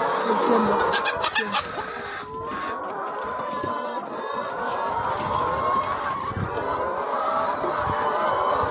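A large flock of brown laying hens clucking all at once in a continuous crowded chatter, with a few short drawn-out calls over it. The hens are crowding and waiting eagerly for feed.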